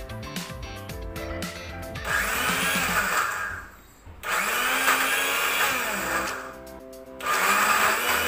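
Electric blender pureeing cooked rice porridge into baby food, run in three short bursts starting about two seconds in. The motor's hum rises as it spins up and drops as it stops each time.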